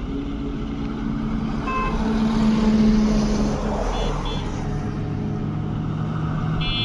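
Diesel truck engines and road traffic passing close by, loudest as a truck goes past about two to three seconds in.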